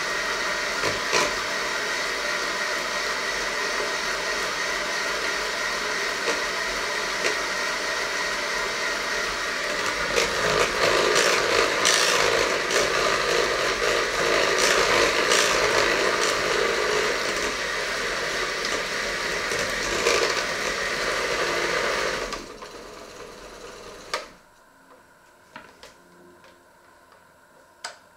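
Electric hand mixer running steadily, its wire beaters whisking batter in a stainless steel bowl with small clicks against the metal; it grows louder around the middle. The motor switches off about four-fifths of the way through, followed by a few light knocks.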